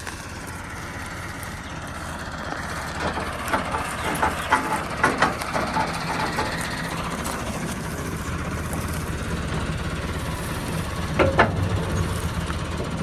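Alghazi tractor engine running steadily under load, with clattering knocks about three to six seconds in and again near the end.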